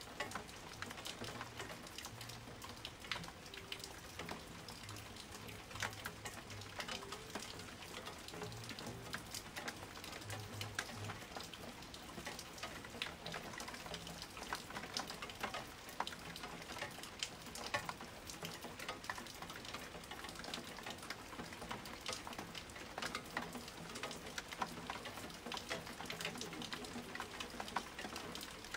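Steady rain, its many separate drops heard as frequent irregular ticks over a constant hiss.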